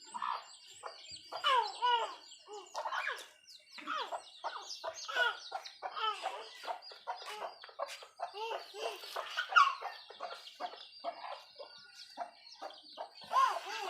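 Chicks peeping and chickens clucking, a dense run of short calls with no let-up.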